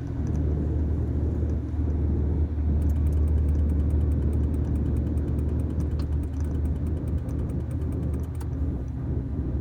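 Truck engine heard from inside the cab, running steadily with a deep low hum. From about three seconds in until shortly before the end, a rapid, light ticking repeats evenly, several times a second.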